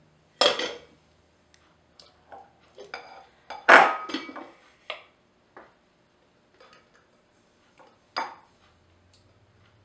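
A spatula knocking and scraping against a glass bowl and the whipped cream maker's container while coconut milk solids are scooped in: several separate clinks and clatters, the loudest about three and a half seconds in.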